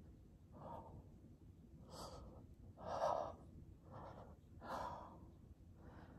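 A man breathing hard through his mouth from the strain of holding a plank, one short breath about every second.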